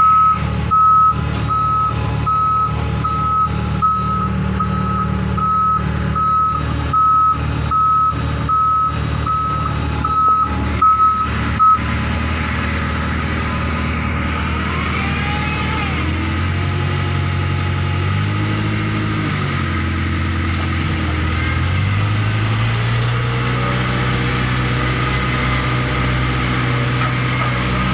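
Backhoe loader's reversing alarm beeping about once a second over its running diesel engine. The beeping stops about twelve seconds in. After that the engine rises and falls in pitch a few times, then holds at higher revs.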